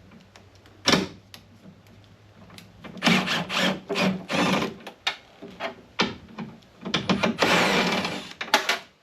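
A tool working loose the two bolts that hold a car door's window glass: a sharp knock about a second in, then several short bursts of rapid rasping and clicking, the longest near the end.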